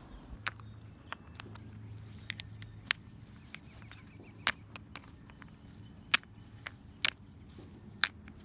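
Irregular sharp clacks of landscape edging stones being picked up and set back into place, about eight knocks with uneven gaps over a low steady hum.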